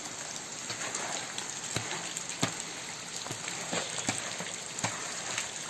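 Heavy rain falling: a steady hiss with scattered sharp drops.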